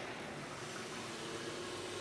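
A steady, faint engine hum under a constant hiss, with no changes or knocks.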